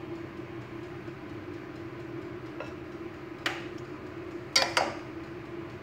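A metal spoon clinking against the cookware while béchamel sauce is spooned out. There are a few sharp clinks in the second half, two of them in quick succession, over a steady low hum.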